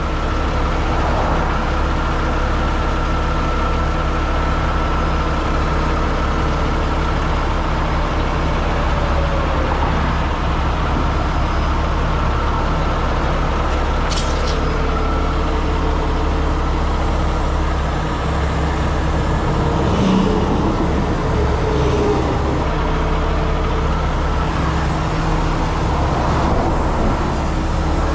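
Heavy diesel truck engine running steadily, with a brief sharp click about fourteen seconds in and a few slight shifts in pitch.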